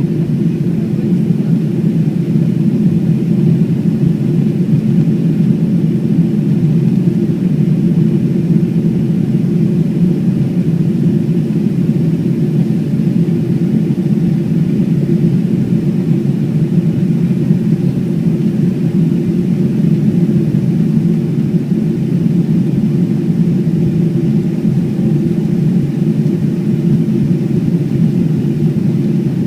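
Boeing 777-300ER's GE90 jet engines and airflow making a steady, low rumble that holds even throughout.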